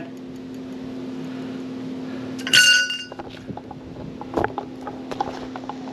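Steel trampoline tube clinking and ringing once, briefly, about halfway through as it is handled, followed by a few light clicks and knocks of the parts being fitted.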